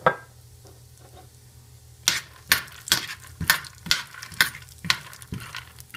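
A utensil stirring raw red-skinned peanuts in oil in a metal frying pan: one sharp clink at the start, then from about two seconds in, repeated scrapes and clinks of the utensil and nuts against the pan, about two a second.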